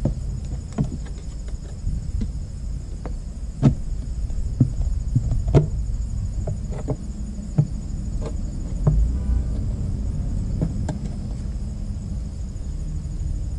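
Scattered light knocks and clicks as the plastic cover of a DCT470 dual-clutch transmission's mechatronic unit is worked loose by hand, over a steady low rumble. Faint steady high insect chirping runs underneath.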